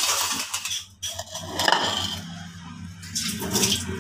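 Metal spoon scraping and clinking against a plate, with a steady low hum underneath.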